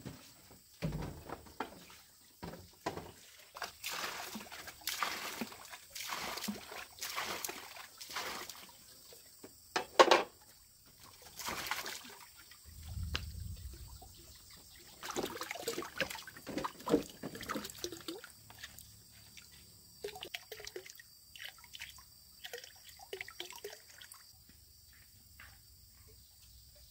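Water sloshing, pouring and trickling as a plastic basin and a woven bamboo basket are handled. Scattered knocks and rustles come with it, and the loudest is a sharp clatter about ten seconds in.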